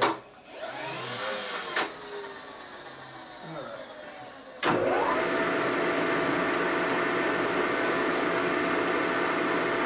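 Vertical milling machine: a motor whirs with a shifting pitch and a single click. About four and a half seconds in, a louder steady hum with a high whine starts abruptly as the spindle motor comes on, and it keeps running.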